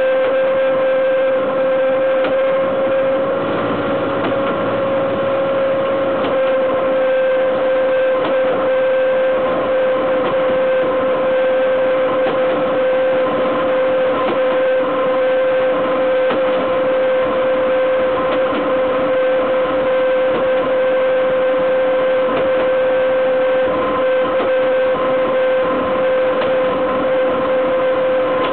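Steel wheels of a BDZ Cargo class 43 electric locomotive running over the rails at speed, heard right at the bogie: a loud, steady rolling rumble with a high steady whine held over it.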